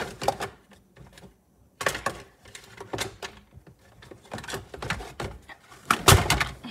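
Painting supplies being handled and set down on a tabletop: irregular knocks and clicks, with the loudest clatter about six seconds in.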